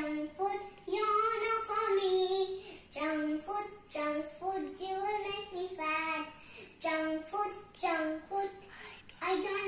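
A young girl singing unaccompanied, in short phrases with held notes and brief pauses between them.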